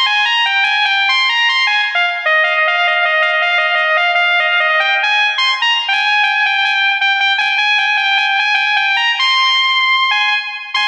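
Basuri telolet multi-tone bus horn playing a quick melody, its notes changing every fraction of a second, with a brief dip in level near the end.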